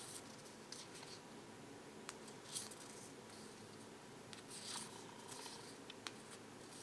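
Large tarot cards sliding against one another as they are moved one at a time through a hand: a few faint brushing swishes a couple of seconds apart, with a couple of light clicks.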